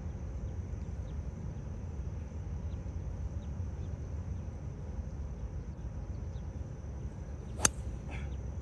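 A 3-wood strikes a golf ball off the fairway grass with one sharp crack about seven and a half seconds in. Before it there is a steady low outdoor rumble, with a constant high thin hum and a few faint chirps.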